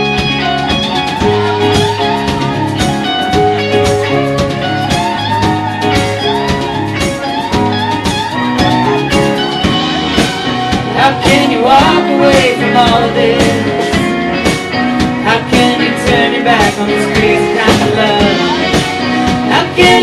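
Live band playing an instrumental passage of a song on guitars, drums and keyboard, with a lead melody line that bends in pitch over the steady accompaniment.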